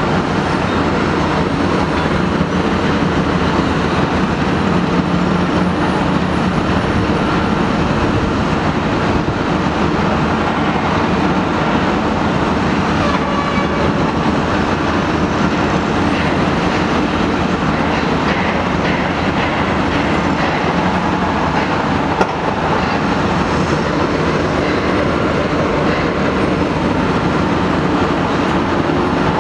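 Caterpillar 330D L excavator's diesel engine running steadily under load with its hydraulics working while it moves a concrete jersey barrier, with a single knock about 22 seconds in.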